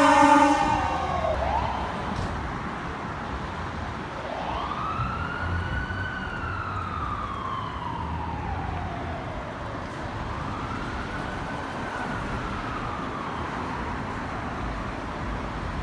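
Siren of a Los Angeles Fire Department emergency vehicle: a loud pitched tone winds down in the first second or so, then the siren wails slowly up and down twice, the second sweep fainter, over a steady traffic rumble.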